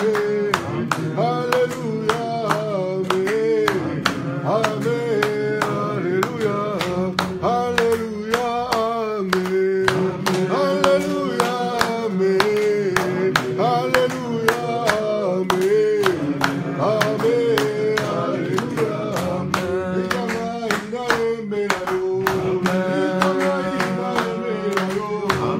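A group of worshippers singing a hymn together, with steady hand-clapping in time.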